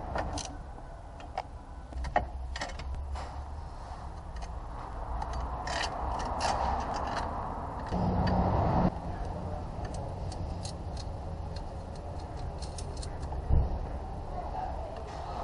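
Hand tools working on bolts in a car's engine bay: scattered metallic clicks and clinks, with short runs of ratchet-wrench clicking. A louder noise lasting about a second comes about eight seconds in, and a single knock comes near the end, over a steady low hum.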